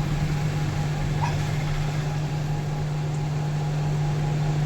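Steady low hum of a running fan or blower motor, with an even rush of air. It holds level and does not change.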